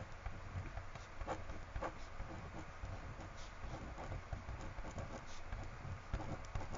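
Faint scratching of a pen writing a name on a paper worksheet, in small uneven strokes.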